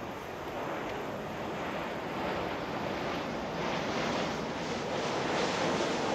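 Twin-engine jet airliner approaching low overhead: a steady rushing engine noise that grows gradually louder and brighter.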